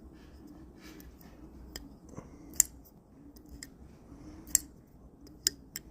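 CJRB Pyrite Bowie folding knife being worked open and shut, giving a handful of sharp metallic clicks as the blade locks and releases, a few of them loud and the rest faint.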